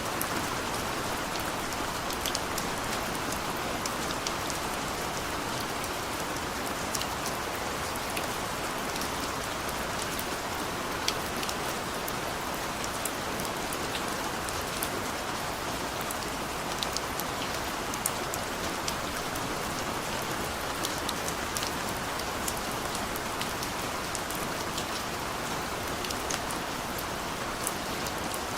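Steady heavy rain falling, with many individual drops ticking sharply close by.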